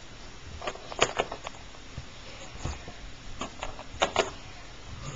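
Light taps and clicks of small plastic Littlest Pet Shop figures being hopped and set down on a surface, about eight at irregular spacing.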